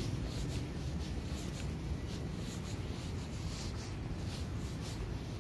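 Footsteps scuffing on a paved ramp at a walking pace, about two steps a second, over a low steady rumble.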